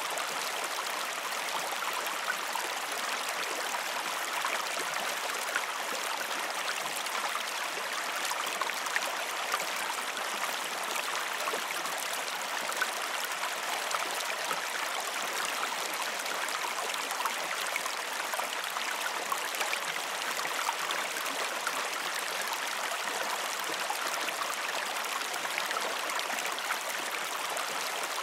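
Gentle creek flowing steadily, with many small splashes through the running water.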